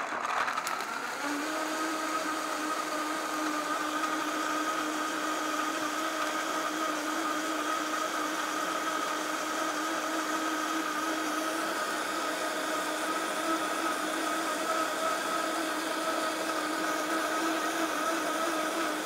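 Vitamix A3500 blender running on its top speed, blending frozen pineapple with coconut milk and pineapple juice. The motor comes up to speed in about the first second, then runs with a steady, even-pitched whine.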